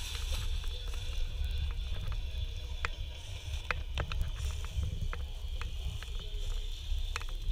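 A steady low rumble and faint hiss, with scattered small sharp ticks and crackles at irregular intervals.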